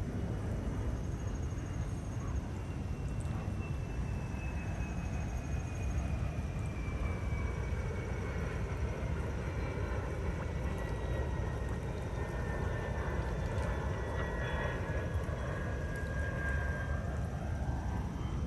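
Airplane passing overhead: a steady rumble with an engine whine that slowly falls in pitch, growing stronger in the second half.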